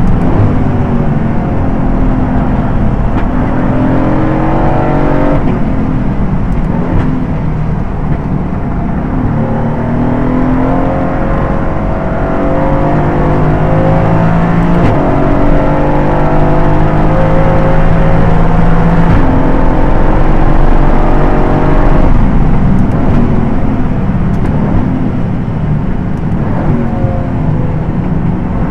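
Aston Martin GT4 race car's V8 engine at race pace, revving up through the gears. The pitch climbs and drops suddenly at several upshifts, with further rises and falls for braking and corners.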